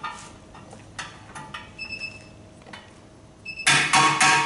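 A clip-on calibration wheel weight being fitted to a steel wheel rim on a hand-spin wheel balancer: scattered metallic clicks and taps with a ringing tone, a brief high tone about two seconds in, then a quick run of loud, ringing metal knocks near the end as the weight is tapped onto the rim.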